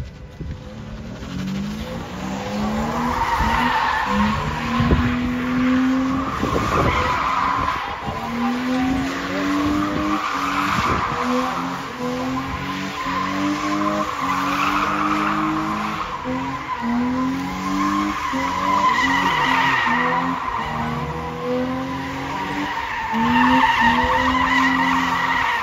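Car drifting in circles: its tyres squeal without a break while the engine revs rise and fall again and again as the throttle is worked.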